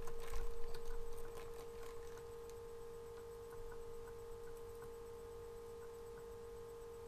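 Steady electrical hum, with light rustling and clicking of small plastic packaging and a dog tag's plastic chain being handled, loudest in the first second or so.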